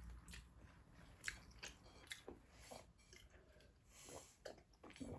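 Faint chewing and soft, scattered mouth clicks of someone eating.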